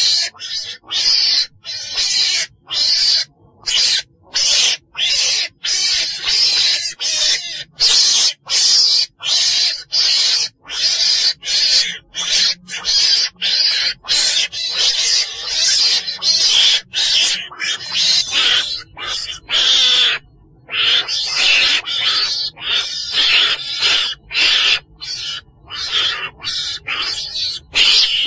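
Repeated calls of the chồn đèn, a small weasel-like carnivore, as used for a hunters' lure recording: short, high-pitched calls about once or twice a second, separated by brief gaps.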